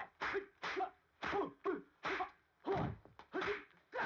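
Kung fu film fight sound effects: a rapid run of dubbed punch and block hits, about two a second, each a sudden smack that fades quickly.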